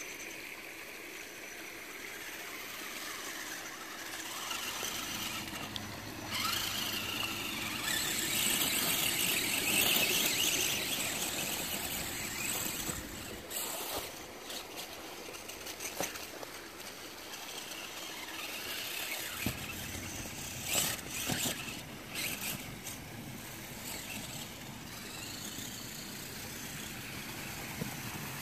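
Electric RC rock bouncer with an RC4WD R3 transmission and transfer case driving up a dirt hill: a high whine from the motor and gears that swells about eight to eleven seconds in, with a few sharp knocks later.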